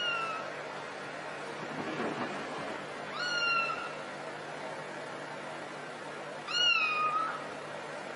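A cat meowing three times, about three seconds apart, each meow rising quickly and then sliding down in pitch; the last is the longest and loudest.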